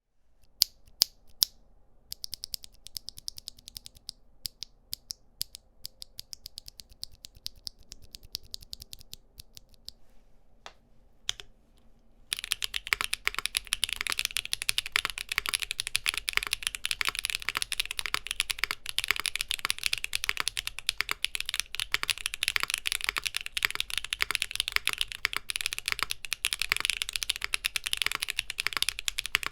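Mechanical keyboard fitted with HMX Firecracker tactile switches (POK stem, nylon housings) being typed on: a few loud single key clacks, then quieter rapid typing, and from about twelve seconds in, fast, dense typing that is much louder. The switches sound clacky but on the deeper side, not harsh or shrill.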